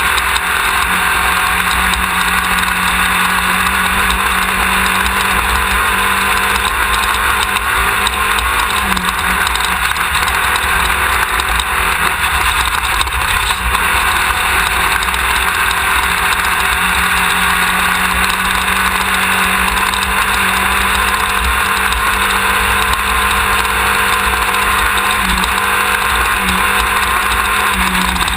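Onboard sound of a Class 1600 off-road race buggy running flat out, its air-cooled VW 1600 engine droning steadily under a heavy wash of wind, dirt and chassis noise. A low engine hum holds for a while, drops away in the middle as the engine note changes, then comes back.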